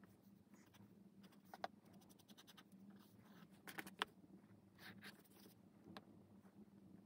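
Faint pencil scratching on sketchbook paper, and a plastic ruler being picked up and laid on the page, with a sharp tap about four seconds in. A faint steady low hum underneath.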